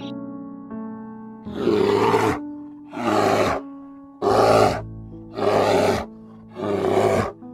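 Five loud, harsh animal calls, each under a second long and about a second apart, over soft background piano music.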